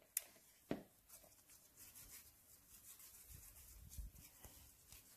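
Faint rubbing of hands working soft atta dough in a plastic bowl, with two short taps in the first second.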